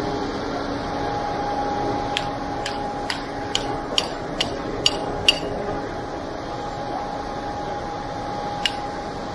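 Hammer tapping on the coupling clamp of a concrete pump hose: about eight sharp taps over some three seconds, then one more near the end, to free the joint after its rubber seal blew. The concrete pump truck runs steadily underneath.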